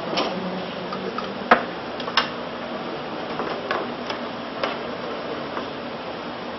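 A metal spatula clicking and scraping against a frying pan as it stirs mushroom gravy: sharp clicks every second or so, the loudest about a second and a half in, over a steady hiss.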